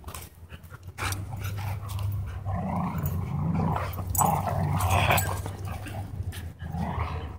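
Dog growling during a tug of war over a rope toy between a husky and a German Shorthaired Pointer. A low, steady rumble starts about a second in and is loudest in the middle.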